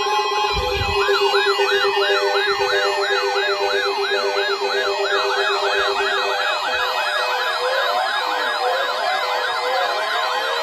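Several electronic sirens in a fast yelp, each sweeping up and down about three times a second. More sirens layer in from about five seconds in, over a steady pulsing tone that stops about six seconds in; a low thump comes about half a second in.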